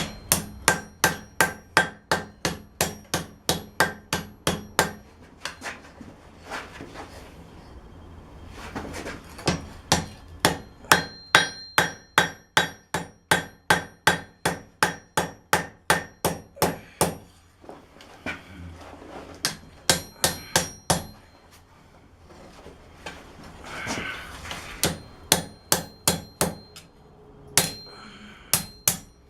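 Blacksmith's hand hammer striking hot steel on an anvil in runs of quick, even blows, about three a second, each with a bright metallic ring, to straighten a forged knife blade. The runs stop and start several times with short pauses between them.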